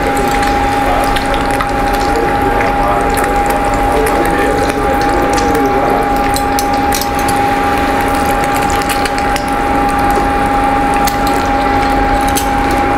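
A torrija (bread soaked in egg, sugar, cream and vanilla) frying in shallow hot oil in a small nonstick pan, sizzling steadily with many fine crackles and pops, with a steady tone humming along.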